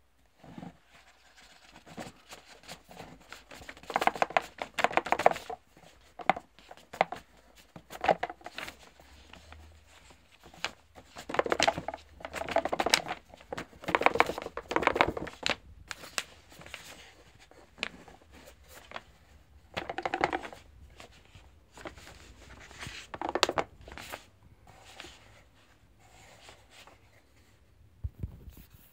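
Paperboard box being handled and opened by hand: paper sliding and rustling in bursts of a second or two, with many small clicks and knocks between.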